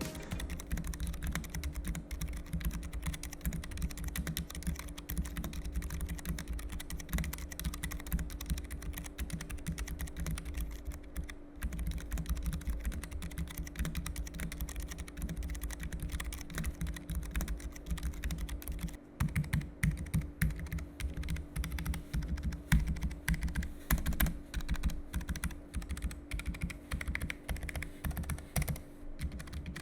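Keychron K1 SE low-profile mechanical keyboard with brown tactile switches being typed on quickly and continuously, a dense run of key clicks with short pauses about 11 and 19 seconds in. Fairly quiet, slightly bright but damped.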